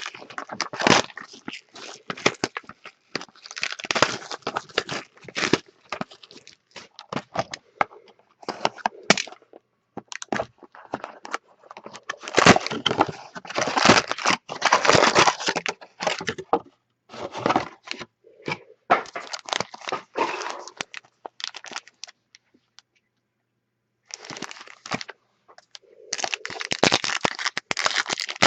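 Trading card packs being handled and opened: wrappers crinkling and tearing, and cards clicking and sliding against each other, in irregular spurts with a short pause about three quarters of the way through.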